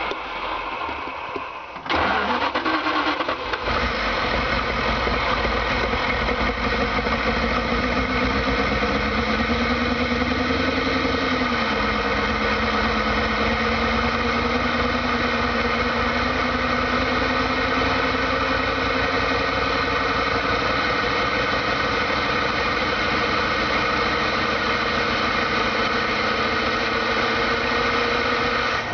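Carburetted van engine, flooded with fuel, cranking about two seconds in and catching roughly a second and a half later, then running. Its pitch climbs for a few seconds and drops back, and it settles into a steady warm-up idle.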